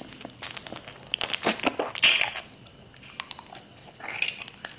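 Close-miked eating sounds as someone bites into a crunchy food and chews it: a run of sharp crunches about one to two seconds in, quieter chewing after, and another crunch near the end.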